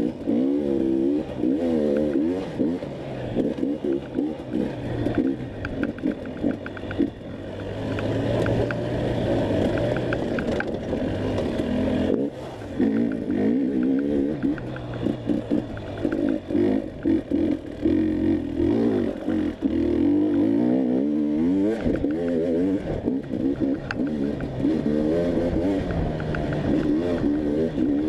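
Enduro dirt bike engine revving hard and backing off over and over as it is ridden through a race test, its pitch climbing and dropping every second or so. Frequent knocks and clatter from the bike over rough ground run through it.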